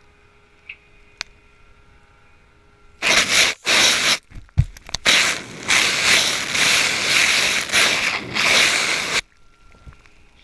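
Loud rushing noise in several surges with short breaks, heard from a GoPro riding a cleaning sponge through a concrete pump's pipeline, lasting about six seconds and then cutting off suddenly.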